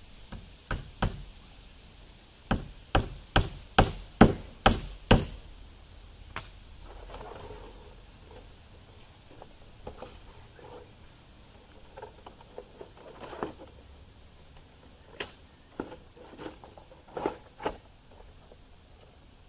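Hammer driving nails into wooden framing. A quick run of about seven blows comes a couple of seconds in, then scattered, quieter taps and blows follow.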